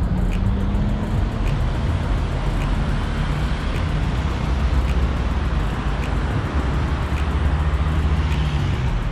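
Steady wind and road rumble from riding an electric-assist bicycle, loud and unbroken, with a heavy low rumble.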